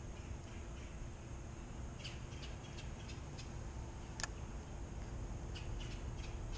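Birds chirping, a few short calls about two seconds in and again near the end, over a steady low outdoor rumble, with one sharp click about four seconds in.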